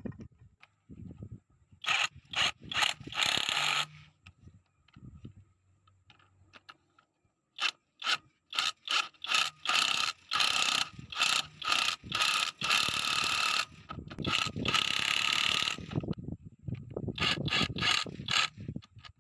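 Ratcheting mechanical clicks in repeated bursts, some short and some about a second long, with a gap in the middle and then coming thick and fast in the second half.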